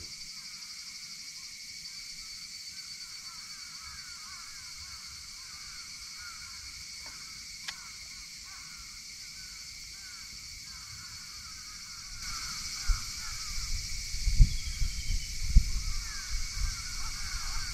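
Morning wildlife chorus around a lake: many short falling bird chirps over a constant high buzz. A single sharp click comes near the middle, and from about two-thirds of the way in, low irregular thumps and rumble join.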